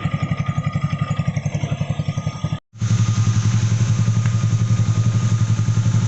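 Honda Click 150i scooter's single-cylinder four-stroke engine idling through an aftermarket Kawahara racing exhaust, a steady, even exhaust beat. It cuts out for a moment about two and a half seconds in and comes back louder.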